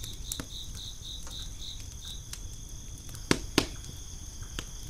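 Crickets chirping: a high pulsing trill of about five pulses a second for the first two seconds, then a steady high trill. Two sharp clicks come about three seconds in.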